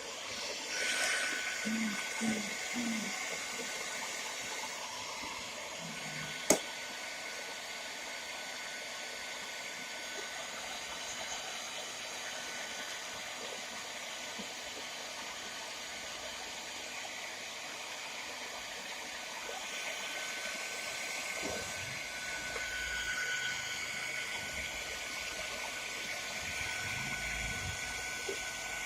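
Hair dryer blowing steadily with a faint whine, heating a motorcycle headlamp to soften the lens sealant. A single sharp click about six seconds in.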